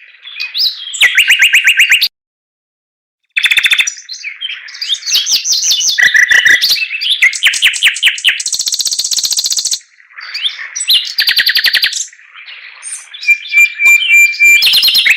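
Chinese hwamei singing a loud, varied song of fast repeated notes and trills, broken by a short gap of silence about two seconds in.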